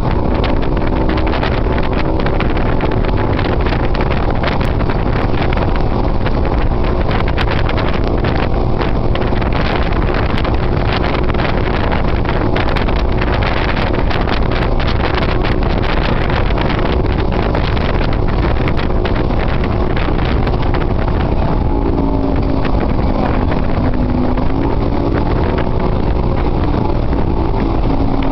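Outboard motorboat engines running hard at speed over choppy water, with wind buffeting the microphone and water splashing. The engine pitch wavers and shifts as the boats ride over the waves, most clearly near the end.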